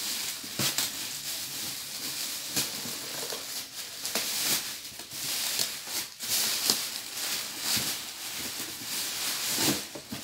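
Thin plastic carrier bags rustling and crinkling as they are handled and pulled off a cardboard box, with irregular sharp crackles throughout.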